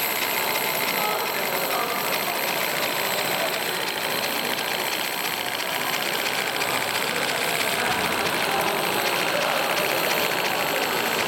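Regner Climax live-steam garden-railway locomotive running, a fast, even mechanical beat over a steady hiss.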